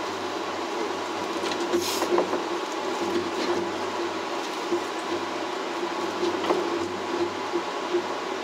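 Skyrail suspended, rope-driven people-mover car running along its elevated guideway, heard from inside the car: a steady running hum with a pulsing tone and scattered short clicks and knocks.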